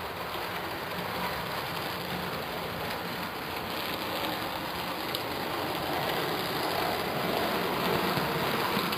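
OO gauge model steam locomotive and coaches running along the track: a steady rushing of the electric motor and wheels on the rails, growing a little louder in the second half as the train comes close.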